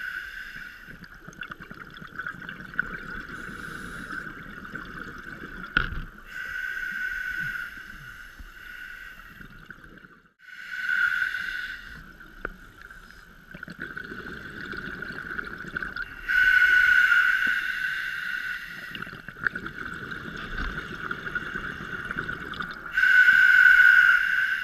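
Scuba diver breathing through a regulator: slow hissing inhalations alternate with bubbly, rumbling exhalations, about four breath cycles. A single sharp click about six seconds in.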